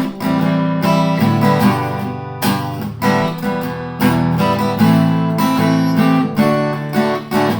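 Acoustic guitar strummed in steady chords, an instrumental passage between sung lines.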